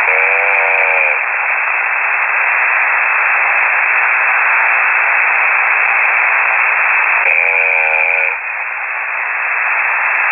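Shortwave radio hiss heard through a KiwiSDR receiver: steady noise squeezed into a narrow voice band. A brief warbling tone comes right at the start and another about seven seconds in.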